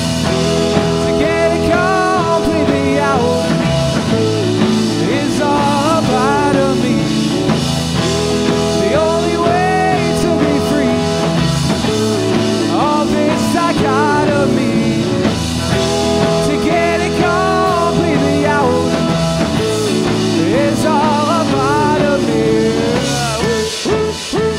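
Rock band playing an instrumental break, with a melody line weaving over held chords and a full low end. Near the end the music turns choppy, with stop-start hits.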